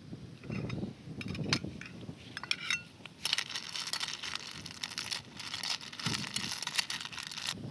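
Snail shells clinking and scraping against a metal pot and a metal ladle as the snails are stirred in their cooking broth, a dense run of small clicks starting about three seconds in.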